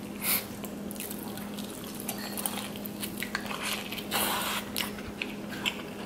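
Close-miked wet eating sounds: squishy bites and chewing on a sauce-soaked potato, with scattered short smacks and a longer, louder bite about four seconds in.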